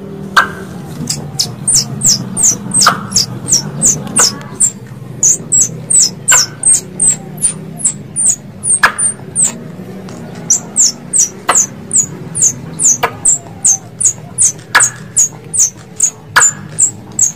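Squirrel calling: a long run of sharp, high chips, about three a second, each dropping slightly in pitch, with a short pause a little past the middle. A steady low hum runs underneath.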